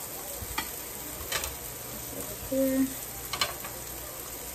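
Steady sizzling from the Power XL Smokeless Grill's hot plate, with metal kitchen tongs clicking a few times as food is picked up. A brief low tone sounds about halfway through.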